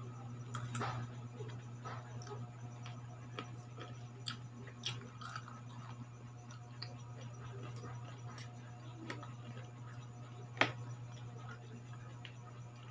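Scattered clicks and taps of a metal fork against a plate of sliced green mango, with quiet chewing, over a steady low hum; one louder tap late on.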